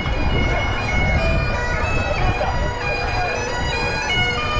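Bagpipe music: steady drones under a melody of held notes that step from one pitch to the next, with a low rumble underneath.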